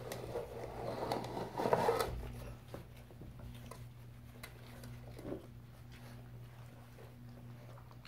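A litter of five-week-old puppies eating from a shared bowl: many small clicks and patter of chewing, lapping and paws on a wooden floor, with a louder rustling scuffle in the first two seconds. A steady low hum runs underneath.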